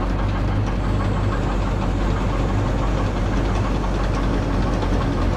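Heavy truck engine idling steadily with a knocking clatter.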